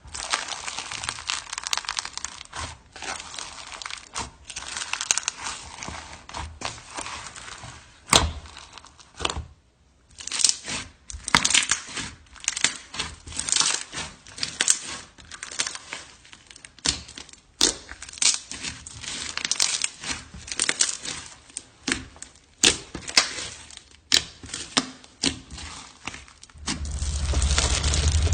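Slime being squeezed and stretched by hand, making irregular crackling and sharp popping sounds with short pauses. Near the end a steady low hum comes in.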